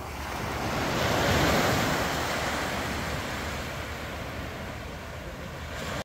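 Small waves breaking and washing up a sandy beach, the wash swelling about a second in and slowly fading, with a low wind rumble on the microphone.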